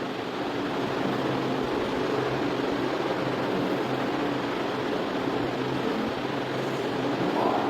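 A steady droning hum with an even rushing noise and a few low steady tones, unchanging throughout.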